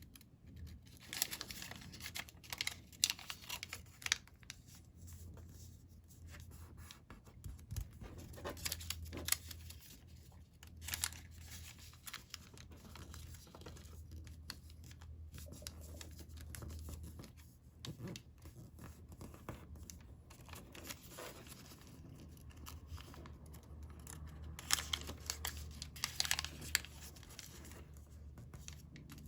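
Sheets of colored origami paper being folded and creased by hand: irregular crinkling and rustling that comes in bursts, busiest near the start, around the middle and near the end.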